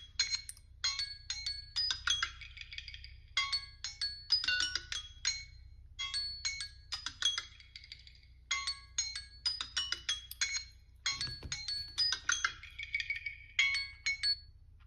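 Samsung Galaxy phone alarm melody ringing: quick, bell-like high notes in a short phrase that repeats every two to three seconds, then stops shortly before the end.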